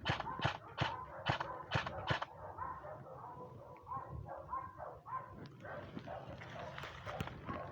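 A dog barking over and over, about two short barks a second. In the first two seconds a run of sharp crunching strokes, about two a second, sits louder over the barks.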